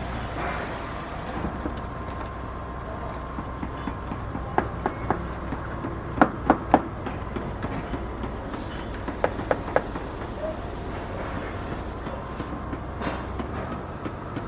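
Steady low drone of construction-site machinery with sharp knocks on top, two quick groups of three, about six and about nine seconds in.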